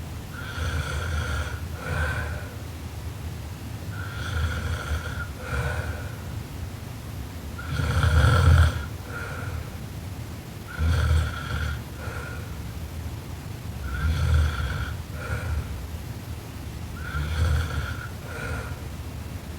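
A sleeping woman snoring loudly, a snore about every three seconds. Each snore is a longer sound followed straight away by a short one, with a high steady tone over a low rumble. The loudest comes about eight seconds in.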